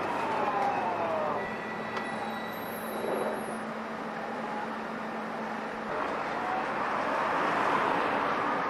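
Electric tram's traction motors whining: the pitch falls over the first second or so as it slows, a steady low hum holds through the middle, and a rising whine starts about six seconds in as it accelerates away.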